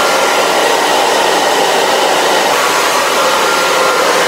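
Blow dryer fitted with a collapsible silicone diffuser, running steadily on low power and the cool setting to dry curly hair. It makes an even rush of air with a faint steady whine.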